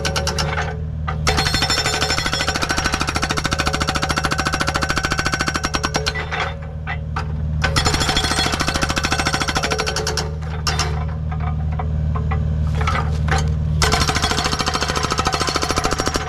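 Agrotk hydraulic breaker hammer on a Kubota U55 mini excavator pounding rock with rapid blows. It goes in four runs, with pauses of a second or more between them, over the steady running of the excavator's diesel engine.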